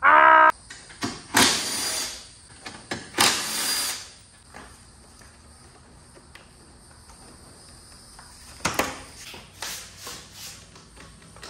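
Workshop noises from dismantling a car's front end: a power tool whirs briefly at the start, then come two short hissing bursts and a few knocks, and a single click near the end.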